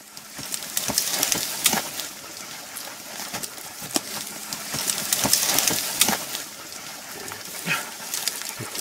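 Dry gorse scrub rustling, with twigs cracking and snapping over and over as someone pushes through it close to the microphone.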